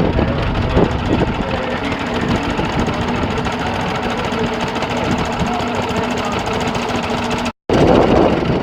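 An engine running steadily, with a faint steady hum. Near the end the sound cuts out for an instant and comes back louder.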